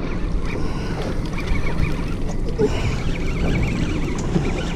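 A spinning reel being wound by hand while fighting a fish on a small open boat, with wind buffeting the microphone and water washing around the hull in a steady din.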